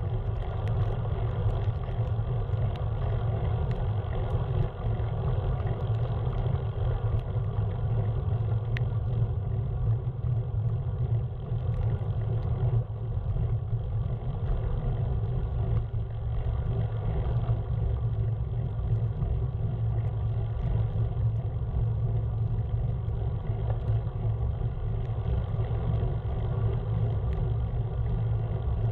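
Steady low rumble of a moving vehicle, unbroken throughout.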